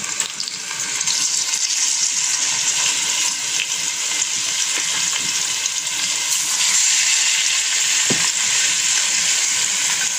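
Raw desi chicken pieces sizzling steadily as they are laid into a hot pot to be lightly fried.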